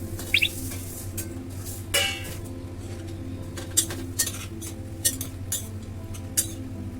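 A metal spoon clinking and knocking against a pressure cooker pot, with irregular sharp taps, one ringing briefly about two seconds in, as mutton frying in ghee is stirred and dry red chilies are added. A steady low hum runs underneath.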